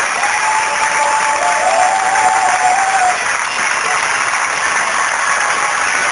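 Theatre audience and cast applauding steadily, dense continuous clapping, with a long high note held over it for the first three seconds.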